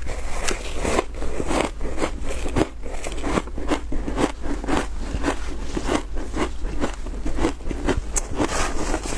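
Close-miked crunching and chewing of a mouthful of shaved ice coated in milk powder: rapid crunches, about three or four a second.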